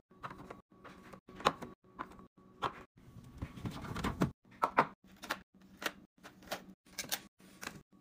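Plastic drink bottles and containers knocking down one after another into clear plastic fridge organizer bins, a quick run of sharp taps and clunks. There is a longer scraping slide about midway through, as a bin is pushed onto a fridge shelf.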